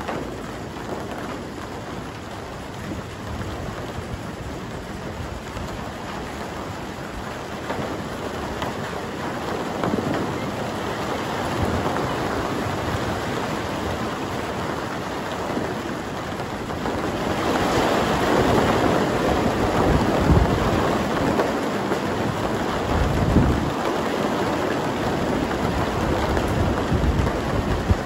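Steady heavy rain with thunder rumbling, the rumbles swelling about a third of the way in and louder again past the middle.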